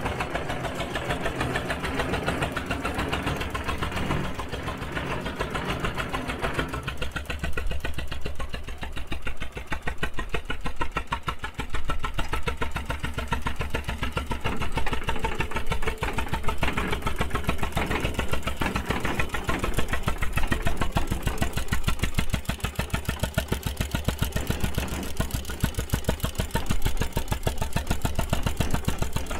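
Fair-Mor 10-20 tractor's engine running steadily at idle with an even firing beat; the sound turns thinner about seven seconds in.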